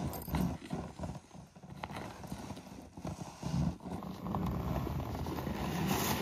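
Loaded plastic gear sled dragged by its rope over a snowbank and down onto packed snow and ice, its hull scraping and knocking in uneven thuds, with boots crunching in the snow.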